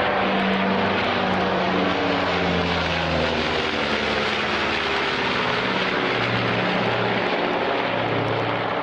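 Loud, steady engine-like noise with a low hum that shifts in pitch every second or so.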